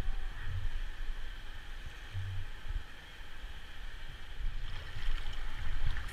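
Rushing river water around a raft, a steady hiss with a low rumble underneath.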